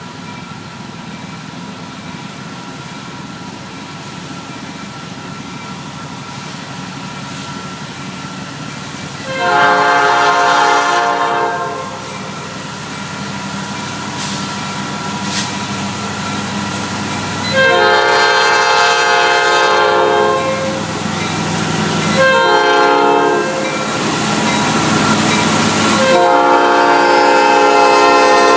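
Diesel freight locomotive's multi-chime air horn sounding the grade-crossing signal, two long blasts, one short and one long, as the train approaches. The rumble of the oncoming train grows steadily louder underneath.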